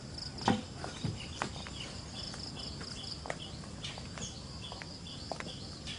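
Insects droning steadily, with a short high chirp repeating about twice a second. A few soft knocks, the loudest about half a second in, come from footsteps on the wooden walkway.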